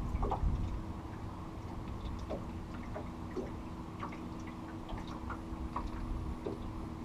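Steady low hum of a boat motor running, with scattered small ticks and drips of water, about one or two a second.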